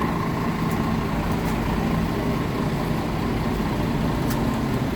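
Heavy diesel engine running steadily, a low, even drone, with a few faint ticks.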